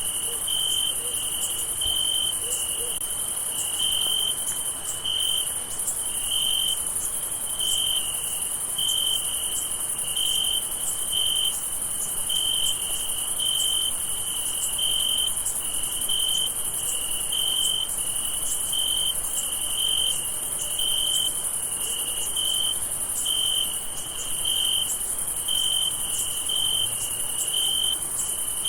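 Crickets chirping: one chirps in short, regular, even-pitched pulses about once a second, over a steady high-pitched drone of more insects.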